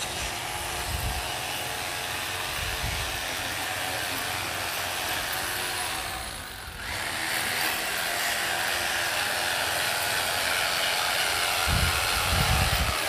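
Handheld electric power tool running steadily against a masonry wall. It eases off briefly about six seconds in, then runs on a little louder.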